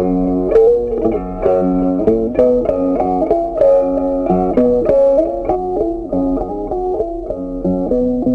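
Background music: a plucked guitar playing a melody of quick, evenly picked notes.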